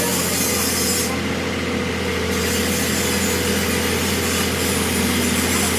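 A machine running steadily, with a constant low hum under an even rushing noise.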